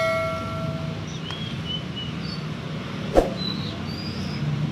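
A bell-like chime rings out and dies away in the first second. Small birds then give several short, high chirps, with a single sharp knock about three seconds in, over a low steady background hum.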